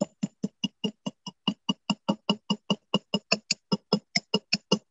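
Rapid, even taps of a small riveting hammer's square face on the end of a wire rivet resting on a steel bench block, about five a second, each with a short metallic ring. The wire end is being spread flat to form a square rivet head.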